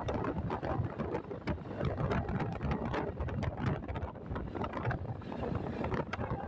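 Wind buffeting the microphone of a moving motorcycle, with the bike's engine running underneath.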